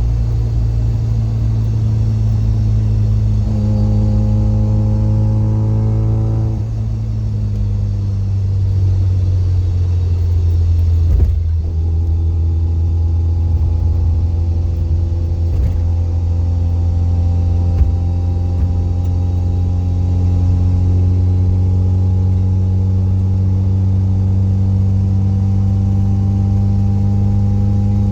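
Mazda FC RX-7 driving, heard from over the differential: the loud exhaust drones steadily underneath a gear whine from the differential, carried into the body through solid delrin subframe and differential bushings. The whine comes in a few seconds in, drops away after about three seconds, then returns and slowly rises in pitch as the load on the diff changes; a single sharp knock sounds about eleven seconds in.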